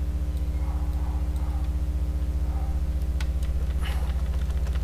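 Steady low electrical hum with a fast even flutter, with a few faint clicks from a computer mouse and keyboard, mostly in the last couple of seconds.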